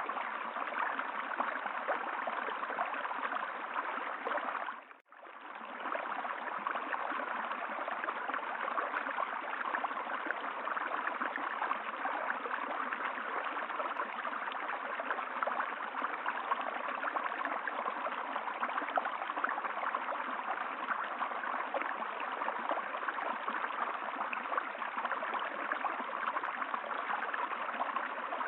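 Steady running water of a stream. About five seconds in, it fades out briefly and comes back.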